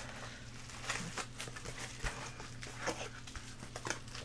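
Faint rustling and scattered light clicks of packing material and comic books being handled and sorted in a box, over a steady low hum.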